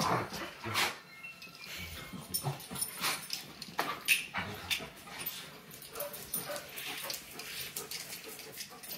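Two black dogs play-fighting: irregular scuffling and knocking sounds with a few short whines.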